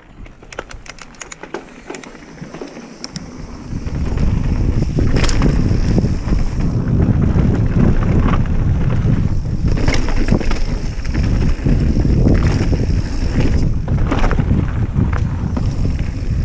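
Mountain bike ridden down a dirt forest trail: light clicks and rattles from the bike at first, then from about four seconds in a loud low rumble of wind buffeting the camera microphone and tyres on the rough ground, with rattles of the bike over bumps.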